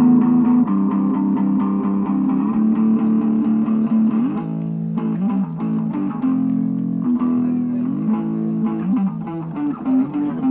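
Guitar built onto a bicycle (a 'guitar bike'), played loud through an amplifier: a plucked melody with long held notes and a few sliding pitch bends.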